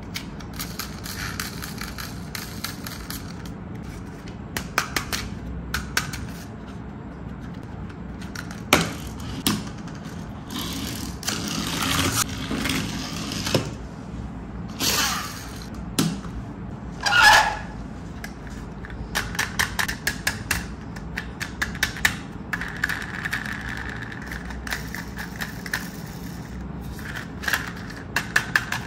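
Plastic toy vehicles being handled and set down on a wooden tabletop: many small clicks and light knocks of plastic, with a few longer scrapes of wheels and bodies rolling or sliding on the wood, the loudest one about seventeen seconds in.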